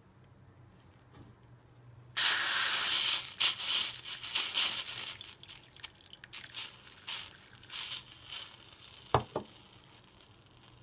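A stream of water pouring onto a metal spoon and a scorched cardboard toilet-paper tube on a plate. It comes on suddenly as a loud splashing rush, then runs in uneven spurts. Two short knocks follow near the end.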